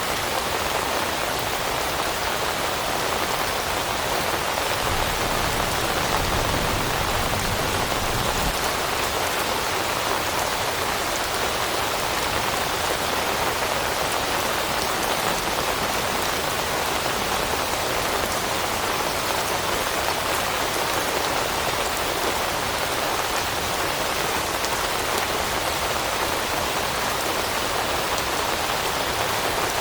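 Steady rain falling on leaves in a forest, a dense, even patter of raindrops. A low rumble sits underneath from about five to eight seconds in.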